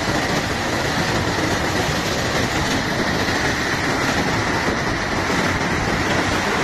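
Steady rushing noise of flowing water that holds an even level throughout.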